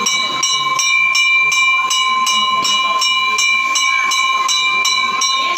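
Temple bell rung rapidly and steadily, about three strokes a second, its ringing tones held without a break, with voices faintly underneath.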